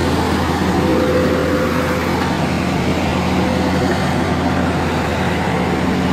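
Excavator's diesel engine running steadily, a constant low hum.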